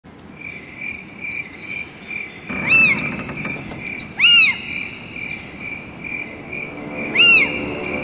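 Forest ambience: insects chirp steadily with a pulsing note about twice a second over fine high ticking, and a bird gives an arching call three times.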